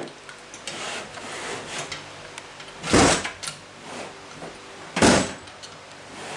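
Two heavy thumps about two seconds apart, with lighter knocks and rubbing between them, from someone working at a cheap electronic safe to force it open after its batteries died.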